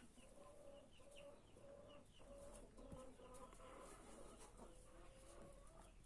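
Faint sounds of a Dominant chicken sick with a respiratory infection: a low, breathy tone that comes and goes every half second or so, the rattling 'snore' of the infected bird, with short high chirps from other hens.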